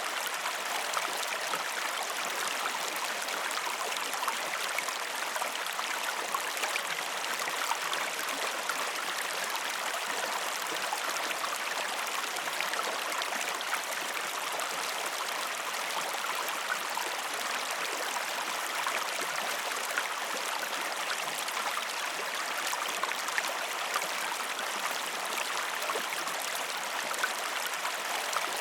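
A mountain stream cascading over rocks: a steady rush of water with small splashes and gurgles, without birdsong.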